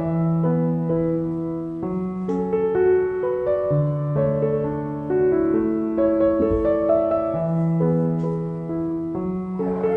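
Piano background music, slow and gentle. Near the end a kitten's meow begins.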